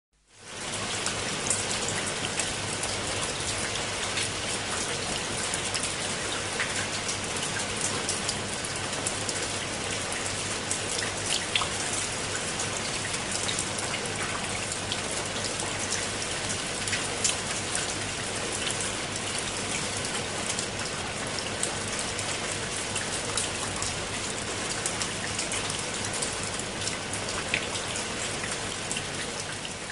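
Steady rain falling on leaves and wet stone steps, a dense patter of close drops. It fades in over the first second.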